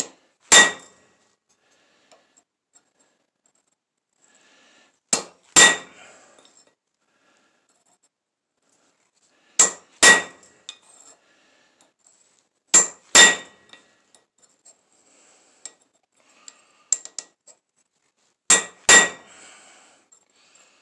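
Hand hammer striking steel on an anvil during hand forging, each blow ringing out briefly. One strike comes first, then four pairs of blows a few seconds apart, with a few light taps between them.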